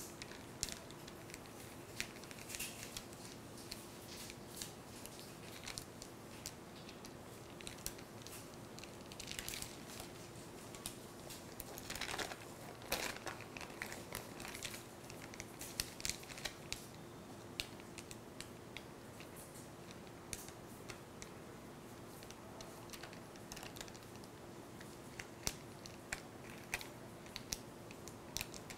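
Thin polythene sheet crinkling and crackling in short, scattered bursts as it is peeled off a soft pressed potato papad and handled, over a faint steady hum.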